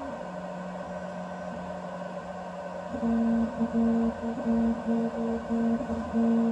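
BIBO Touch X 3D printer running, its stepper motors singing pitched tones over a steady fan hum as the print head moves. One note is held for about three seconds, then a higher note sounds in short on-off pulses, about two to three a second, as the head makes short back-and-forth moves.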